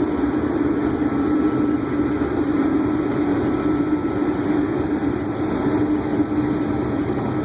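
Combine harvester running steadily while harvesting wheat, heard from inside the cab: an even machine drone with a steady low hum and a faint higher tone.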